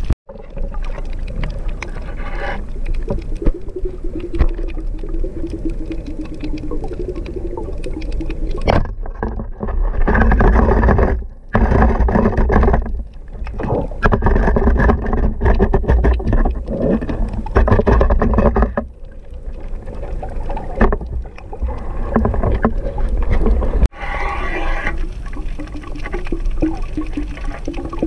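Muffled underwater sound picked up through an action-camera housing: water rushing and knocking against the housing. A low hum slides down in pitch in places, and the sound cuts off and changes abruptly several times.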